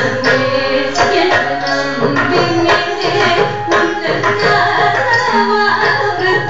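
Live Carnatic music accompanying Bharatanatyam dance: a voice singing a melody over quick, sharp hand-drum strokes.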